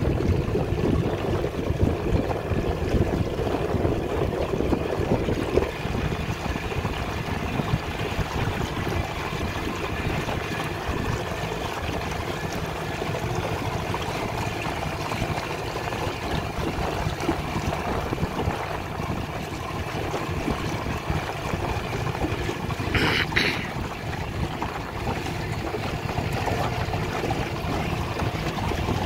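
Small Yamaha outboard motor running steadily at trolling speed, mixed with water washing against the aluminium hull and wind on the microphone. A brief high-pitched sound cuts in about three-quarters of the way through.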